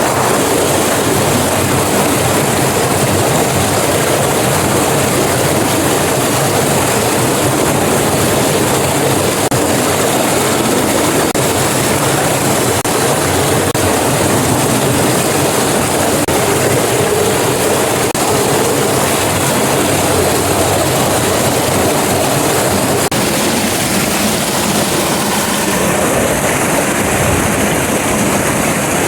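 Loud, steady rush of water pouring down a mountain waterfall.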